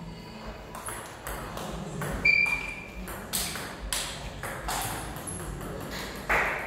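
Table tennis rally: the ball clicking off the rubber paddles and bouncing on the table in an irregular series of sharp knocks, the loudest one near the end. A brief high squeak sounds about two seconds in.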